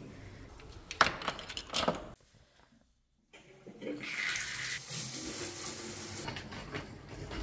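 A couple of sharp clicks and knocks from a door being opened, then a shower valve turned on and the shower head spraying water in a steady hiss that starts about three seconds in.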